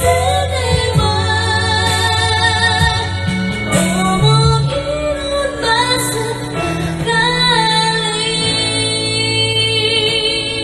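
A pop song sung live into a handheld microphone over a backing track with held bass notes, a woman's voice leading the melody.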